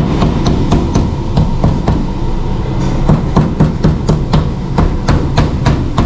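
Meat mallet pounding raw beef steak on a plastic cutting board: a quick run of repeated thuds, about three to four strikes a second, tenderizing and flattening the meat. A steady low hum runs underneath.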